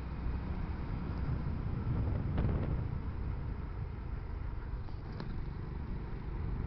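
Steady low rumble of road and engine noise from travelling through city traffic, swelling briefly about two and a half seconds in.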